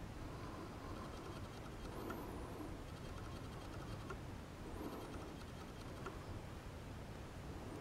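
Faint steady background hiss with a few soft, light ticks scattered through it.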